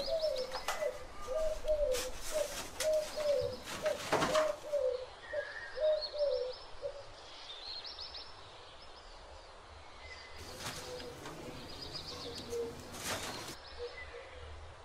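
A bird calls a quick run of short, slightly falling low notes, about two a second, through the first half, with faint higher chirps. Four brief bursts of rustling from paper and a plastic bag being handled are the loudest sounds.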